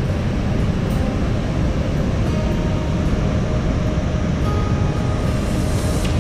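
Athirappilly waterfall: heavy falling water making a steady, unbroken rushing noise that is strongest in the low rumble. Faint music tones come in near the end.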